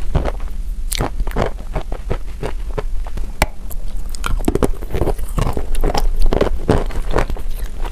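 Close-up biting and chewing of a block of chalk soaked in creamy paste: a steady run of crisp crunches, several a second.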